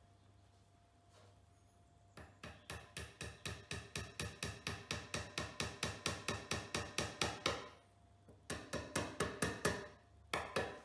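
Claw hammer tapping small wooden dowels into the end of a flat-pack shelf panel: a long run of light, quick taps, about five a second, growing louder. After a short pause comes a second, shorter run, then a couple of last taps near the end.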